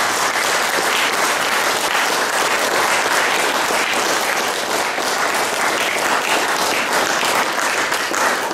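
A room full of people applauding, a steady dense clapping that holds throughout.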